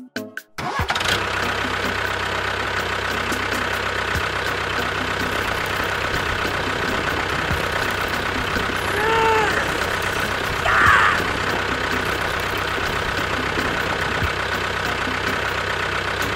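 An engine running steadily at idle, with an even low drone. A short tone rises and falls about nine seconds in, and a brief higher burst follows about two seconds later.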